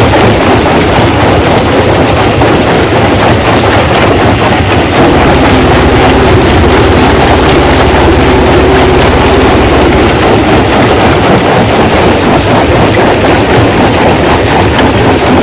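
Rock crusher running steadily, a loud heavy-machine noise with a dense, continuous clatter of stone being broken.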